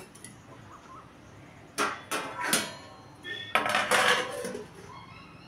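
Stainless steel plate clinking and clattering against a metal kadai as it is set on as a lid: a few sharp metal knocks with a short ring about two seconds in, then a scraping clatter about four seconds in.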